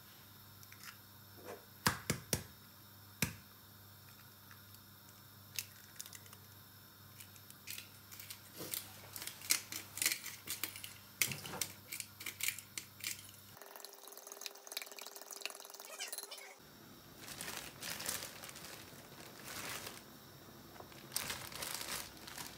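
Eggs tapped and cracked on the rim of a bowl, a few sharp knocks about two seconds in, then a small glass shaker shaken over the bowl in a quick run of clicks. Later, scattered clicks and knocks of kitchen handling.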